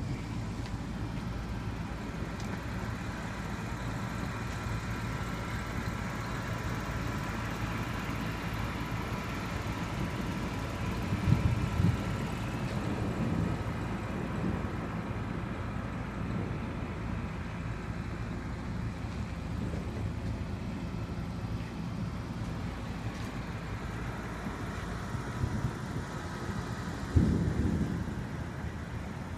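Thunder rumbling twice, once about a third of the way in and again near the end, over a steady low background of storm noise.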